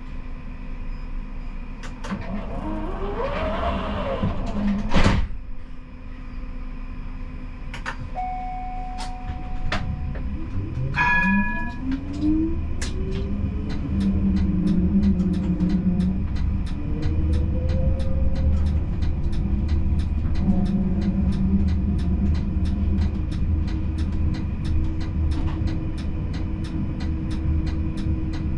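Siemens Combino tram heard from the cab, with a steady electrical hum. There is a sharp knock about five seconds in and a couple of short beeps. Then the traction motor whine rises in pitch as the tram pulls away, under steady clicking of about two to three a second.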